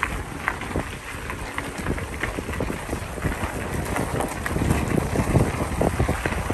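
Bicycle tyres rolling over a gravel trail, the loose stones giving many small irregular ticks, with wind buffeting the microphone; the rumble grows heavier about two thirds of the way through.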